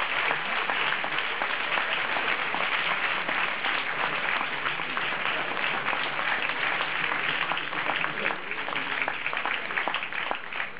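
Audience applauding: dense, steady clapping that thins into scattered separate claps near the end.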